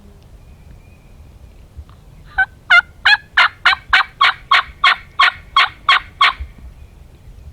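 Turkey yelping: a run of about thirteen evenly spaced yelps, about three a second, starting a little over two seconds in and stopping near six seconds.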